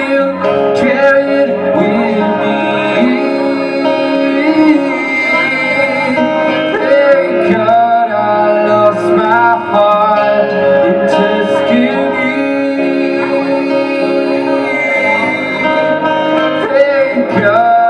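Live music: a voice singing without clear words over guitar.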